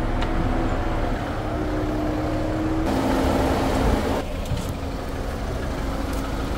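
Jeep Wrangler engine running, a steady hum and rumble with a few held tones. The sound shifts abruptly about three seconds in and again about four seconds in.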